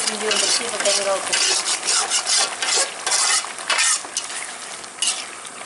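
A slotted metal ladle stirs and scrapes through thick curry gravy in a large metal pot, in irregular strokes. The strokes are loud for the first four seconds or so, then softer.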